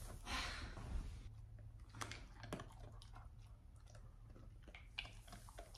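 Fox red Labrador chewing a small treat taken from a hand, heard as faint scattered clicks. A brief rustle of clothing at the start.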